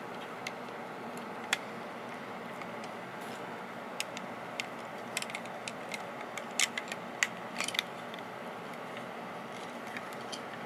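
Plastic LEGO bricks clicking, with scattered sharp snaps as pieces are handled and pressed together, bunched most closely about halfway through. A steady background hiss runs underneath.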